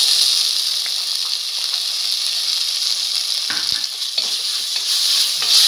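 Shallot and spice masala sizzling in hot oil in a stainless steel pan, with tomato sauce just stirred in. A spatula scrapes and knocks against the pan a couple of times about three and a half to four seconds in.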